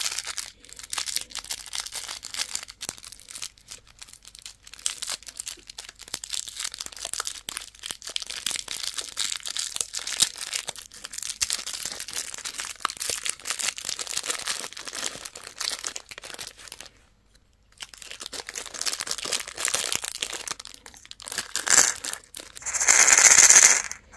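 Plastic candy wrappers crinkling and tearing open as they are handled, a dense crackle that stops for about a second past the middle and ends in a louder burst of rustling near the end.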